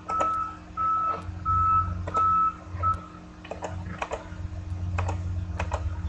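An electronic beeper sounding a steady high tone in short beeps, about three every two seconds; five beeps, stopping about halfway. Sharp clicks are scattered throughout.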